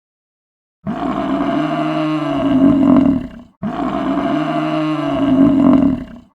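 A large animal's long, loud call, heard twice as the identical recording repeated, each call lasting nearly three seconds with a short break between.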